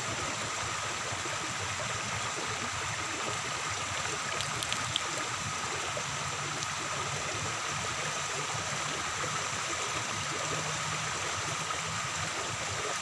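Floodwater flowing with a steady, even rush, and a few faint clicks about four and a half seconds in.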